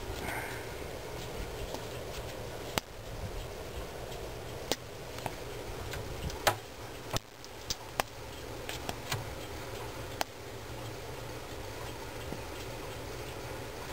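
A steady low hum with about ten sharp clicks and taps scattered through the middle, the loudest about halfway through.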